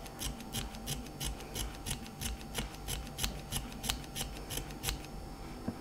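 Small scissors snipping quickly and evenly at the end of a white thread, about three snips a second, chopping it into fine fluff. The snipping stops about five seconds in.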